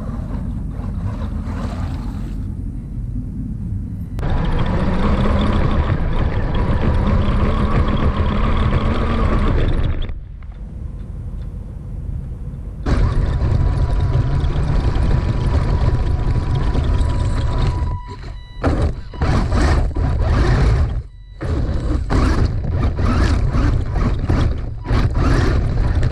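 Radio-controlled buggy driving, heard from a camera mounted on it: a loud rumbling rush of tyres, drivetrain and wind on the microphone. It starts suddenly about four seconds in, eases off for a few seconds around ten seconds, and comes in short stop-start bursts near the end as the car moves from gravel onto concrete.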